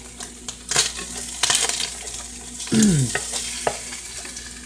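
Peppers, turkey and cheese sizzling in butter in a frying pan, with a utensil scraping and clicking against the pan several times. A brief sound falling in pitch stands out about three seconds in.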